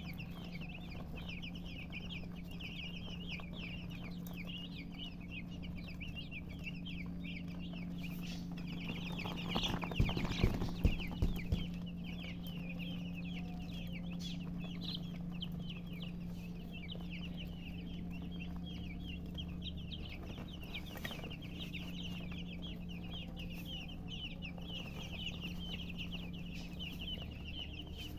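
Many baby chicks peeping continuously in short, high chirps, over a steady low hum. A short run of loud knocks comes about ten seconds in.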